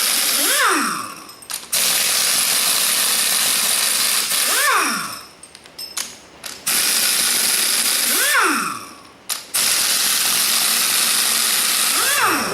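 Pneumatic air tool running in runs of a few seconds, a loud steady hiss, each run ending with a falling whine as the tool spins down, followed by a short pause; four spin-downs, with three full runs between them.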